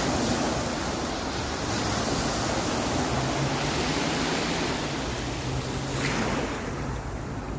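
Sea waves surging and washing onto a sandy beach, with wind buffeting the microphone. A low steady hum joins about three seconds in, and one wave swells up about six seconds in before the wash dies down.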